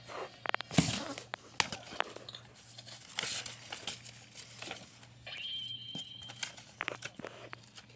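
Paper cutouts rustling and crinkling with irregular clicks and scrapes of handling close to the microphone. A brief high steady tone sounds about five seconds in.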